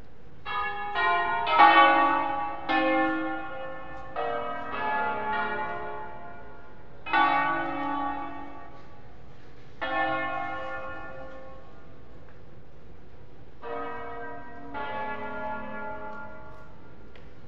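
The seven tuned bells of Cremona Cathedral's tower, a diatonic peal in A-flat major, rung in the Italian concert style. A quick run of strokes comes in the first three seconds, then single strokes a few seconds apart, each ringing on, the last ones softer.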